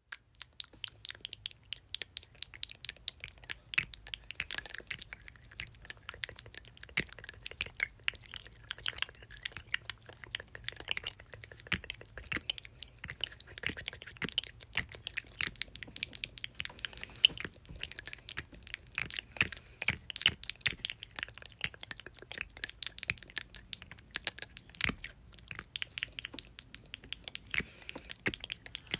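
Wet mouth sounds: a rapid, irregular stream of tongue and lip clicks and smacks, with no pause throughout.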